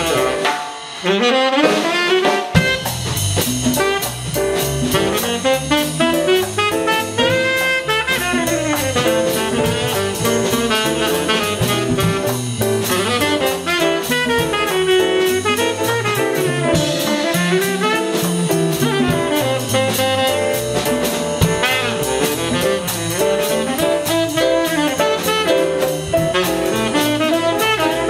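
Live jazz combo playing: a tenor saxophone carries the melody over piano, electric bass and drum kit. The bass and drums drop out briefly about a second in, then the full band comes back in.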